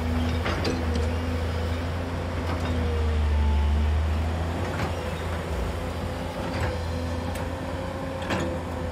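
JCB crawler excavator's diesel engine running steadily under load, with a steady hydraulic whine, as the machine dumps soil into a truck and swings its boom back down into the pit. Sharp metallic clanks come through it about half a dozen times.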